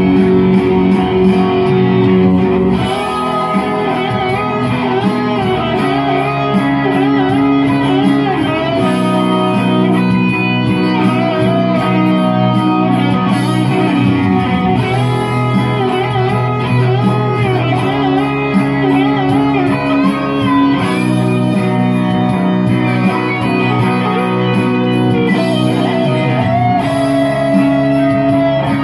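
Instrumental music: an electric guitar plays a melodic lead with bent, wavering notes over a backing track.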